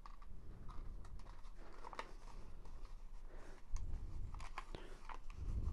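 Faint rustling and small clicks of cardstock being handled as the tabs of a folded paper cone box are pushed through their slots and the box is turned in the hands.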